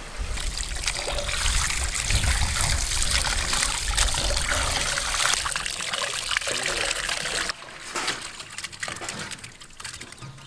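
Water pouring in a steady stream from a plastic jerry can onto raw chicken pieces in a steel basin, splashing. About seven and a half seconds in the sound drops suddenly to quieter splashing as the chicken is rubbed by hand in the water.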